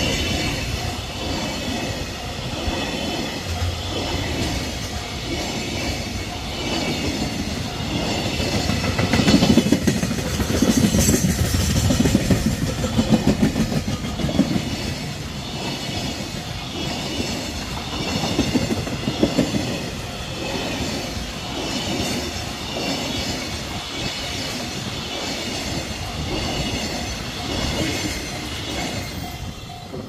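Container flat wagons of a long freight train rolling past, their wheels clacking in a steady rapid rhythm over the rails. It is loudest about a third of the way in.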